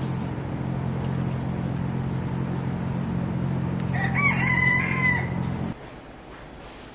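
A rooster crows once, about four seconds in, over a steady machine hum and short repeated hissing bursts. The hum cuts off abruptly near the end.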